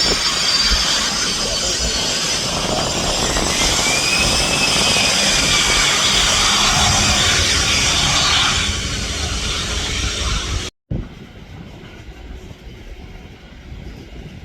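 Jet airliner engines running at high power: a loud roar with high, slowly gliding whining tones. It cuts off abruptly about eleven seconds in, leaving a much quieter rumble.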